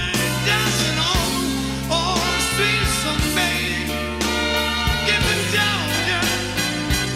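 Live soul band playing, with steady bass notes and regular drum hits under a melody line that bends in pitch; an FM radio broadcast of the concert recorded on cassette tape.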